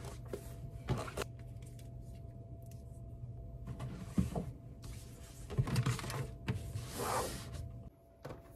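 A few short swishes and knocks of someone moving about in a small room, over a low steady hum.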